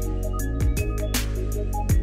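Background electronic music with a steady beat: deep kick drums that drop in pitch, sharp percussive hits and sustained synth notes.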